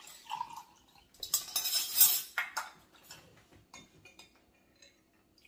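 Spoons clinking and rattling against cups and the tabletop. A louder clatter starts just over a second in and lasts about a second, followed by scattered light clicks.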